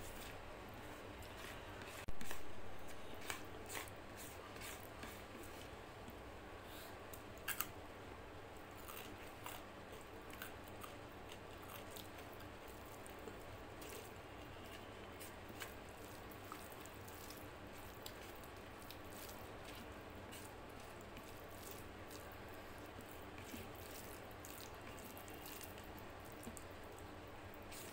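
Eating sounds: fingers mixing rice and mutton curry on a plate, with chewing and many small scattered clicks. One louder sharp knock about two seconds in.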